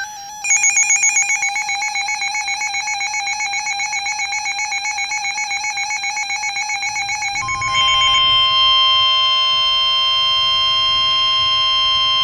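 Emergency alert tones from a weather radio: a rapidly pulsing electronic alarm beep, then about seven seconds in a steady single-pitch tone near 1 kHz, the NOAA Weather Radio warning alarm tone that comes before a warning broadcast.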